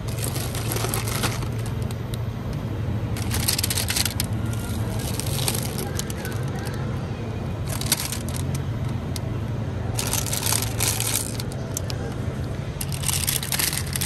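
Plastic frozen-food bags crinkling in several short bursts as they are grabbed and lifted from a freezer shelf, over a steady low hum.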